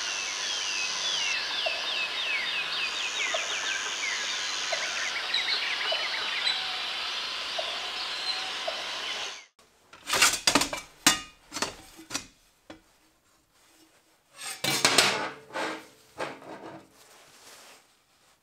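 Hand file rasping on steel in repeated strokes for the first half. Then, abruptly, a run of sharp metallic clanks and clatters as steel plate offcuts are shuffled in a plastic basket, loudest about a second in and again near the middle of that stretch.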